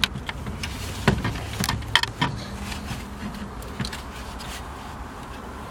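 Scattered clicks and knocks of plastic dash parts and wiring connectors being handled in a car's dashboard, the sharpest about one and two seconds in, over a low steady rumble.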